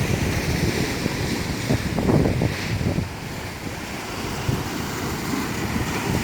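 Waves breaking and washing on a sandy beach, with a louder surge about two seconds in, under wind buffeting the microphone.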